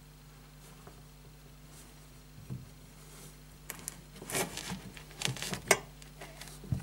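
Hand and sleeve rubbing, brushing and knocking against copper pipes and a wooden frame in a tight cavity, a cluster of rustles and small knocks in the second half, the sharpest near the end. A faint steady low hum sits underneath.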